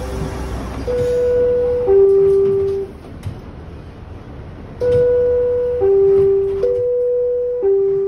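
Subway car door chime: a two-note falling 'ding-dong', sounded once about a second in and then repeated back to back from about five seconds in, the warning that the doors are about to close. A hiss at the start and a few clicks are heard between the chimes.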